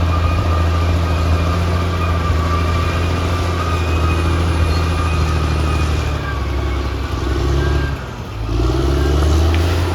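Caterpillar D6R XL bulldozer's diesel engine running steadily under load, with a faint steady whine above it. About eight seconds in the engine note drops briefly, then picks up again and rises.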